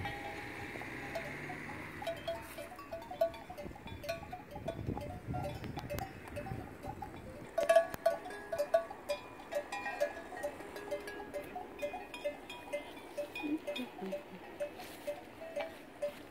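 Cowbells on resting cattle clanging irregularly, several bells at once, with a louder cluster of clangs about eight seconds in.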